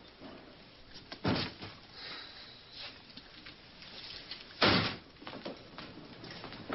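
A door slammed shut with one loud bang about two-thirds of the way in, after a shorter knock about a second in.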